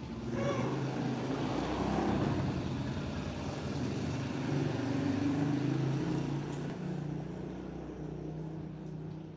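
A motor vehicle's engine running steadily, its low hum drifting slightly up and down in pitch. There is a short higher note about half a second in.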